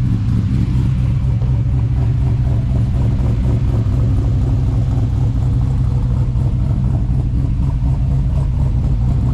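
LS V8 swapped into a 2004 GMC Canyon, idling steadily.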